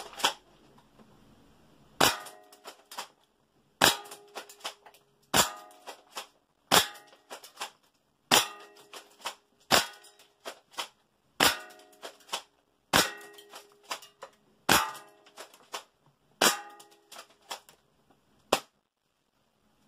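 A Tokyo Marui M3 Shorty spring tri-shot airsoft shotgun firing repeatedly into a metal target plate. There are about a dozen sharp clanging hits, one every 1.5 to 2 seconds, each with brief metallic ringing and a few lighter clicks after it.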